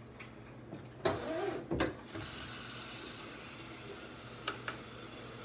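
Kitchen tap turned on about two seconds in, then water running steadily into the sink. Just before it, a short voice-like sound and a sharp knock, and two faint clicks near the end.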